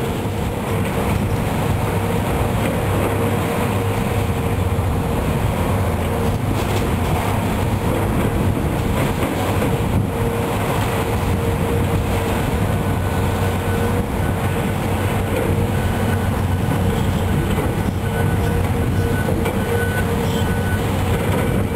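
Heavy diesel demolition machinery running steadily: a continuous engine rumble with a steady hum.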